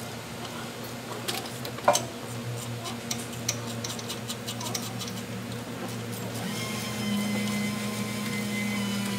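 Ratchet clicking in quick runs as a bolt is tightened at the lower mount of a motorcycle crash bar, mostly in the first half, with one sharp metallic knock about two seconds in.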